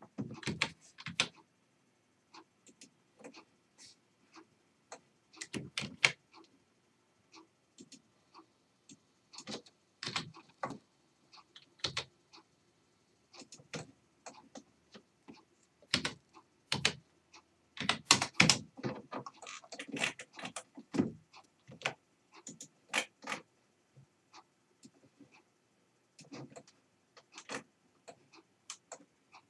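Computer keyboard keys and mouse buttons clicking in irregular, scattered bursts, with the busiest run of clicks a little past the middle.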